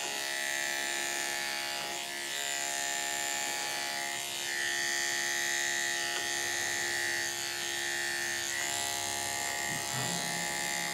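Electric dog-grooming clipper with a #10 blade, running steadily with a constant motor hum as it shaves a dog's belly fur close; its higher tone dips briefly a few times.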